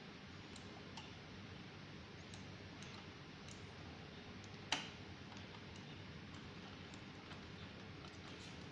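Faint clicks and ticks of a screwdriver turning a screw in the metal housing of a GeneXpert module, with one sharper click a little under five seconds in.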